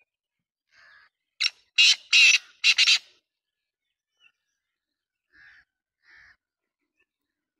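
Black francolin calling: a short run of four loud, harsh notes about one and a half to three seconds in, with fainter single calls before and after.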